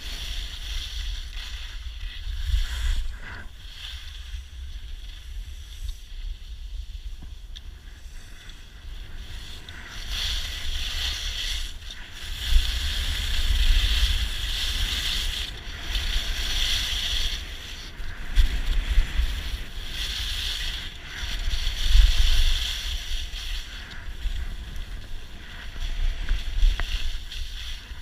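Wind buffeting the camera microphone as a low rumble, with the hiss of edges carving across groomed snow swelling with each turn, every two seconds or so.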